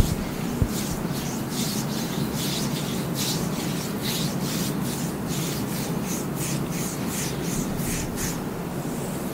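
Massage hands rubbing and kneading skin on a thigh: repeated swishing strokes of palms over skin, about two or three a second, over a steady low hum. A short knock sounds right at the start.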